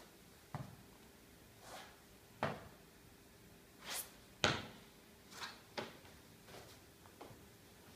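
A series of dull thuds as sneakered feet land on a rubber gym floor during stepping stretch movements from a push-up position, with softer brushing or scuffing sounds between them. The loudest thud comes about four and a half seconds in.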